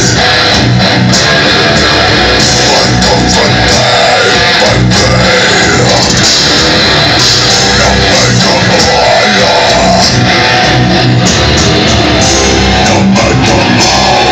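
Death metal band playing live: distorted electric guitars, bass and drums, loud and steady with no breaks.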